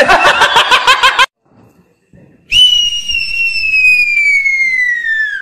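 A long cartoon-style falling whistle sound effect, one tone sliding steadily down in pitch for about three seconds. It is preceded by a rapid pulsing sound clip that cuts off abruptly about a second in, then a short pause.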